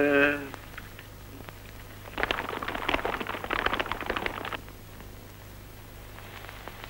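A short voice sound at the very start, then a dense, irregular clatter of hoofbeats from several horses galloping, lasting a couple of seconds and cutting off abruptly.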